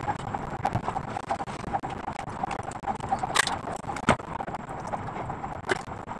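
Cut flower stems and leaves being handled and pushed into a flower arrangement: light rustling and small clicks, with a few sharper clicks, over a steady background noise.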